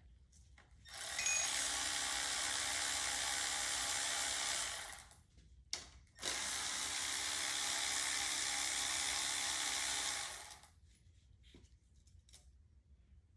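Handheld power tool running in two steady spells of about four seconds each, with a short click between them, while a 6.0 LS V8 engine is being taken apart.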